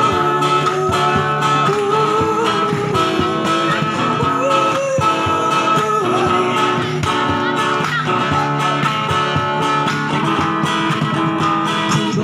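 Guitars playing an instrumental break in a pop-rock song: strummed chords with a melody line over them, steady and loud.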